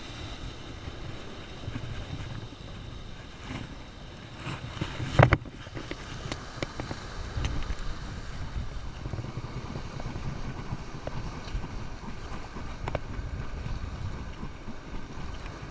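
Strong wind buffeting the microphone: a steady, uneven low rumble, with one brief loud knock about five seconds in.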